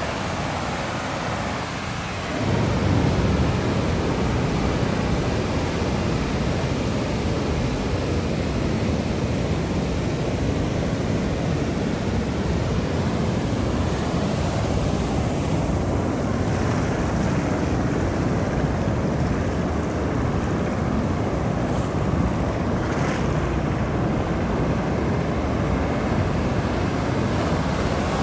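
Ocean waves and surf washing in steadily, a continuous rushing noise that grows louder about two and a half seconds in.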